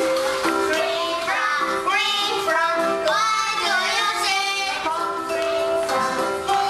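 Children's song: a child singing a bending, wavering melody over a steady bright instrumental backing.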